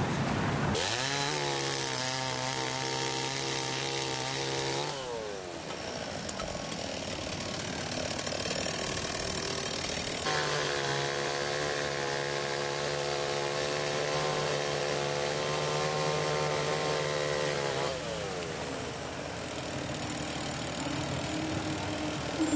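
Wheel loader's diesel engine revving up and holding a steady high pitch, then dropping back to idle, twice: once for about four seconds, then for about seven and a half.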